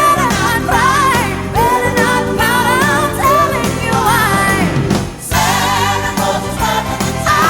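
A recorded song playing: a sung vocal melody over an instrumental backing, with a brief drop in the music about five seconds in.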